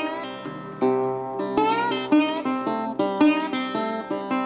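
Background music: a plucked string instrument playing a tune, with some notes sliding in pitch.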